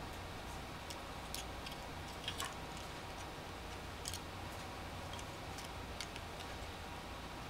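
Faint, irregular clicks and taps of small plastic kit parts being handled and fitted together: a pinhole planetarium's bulb socket being slid into its shaft. A low steady hum runs underneath.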